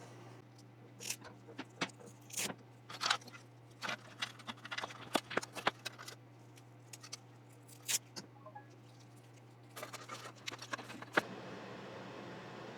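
Irregular sharp clicks and taps of small plastic and metal computer parts being handled and fitted during motherboard assembly, over a steady low hum.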